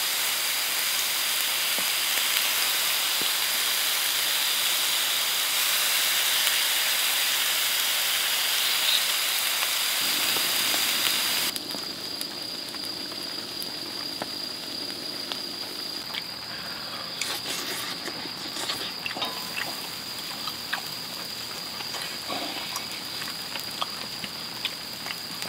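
Skewers sizzling on a grill: a steady loud hiss that stops abruptly about eleven seconds in. It gives way to quieter sizzling with scattered pops and crackles.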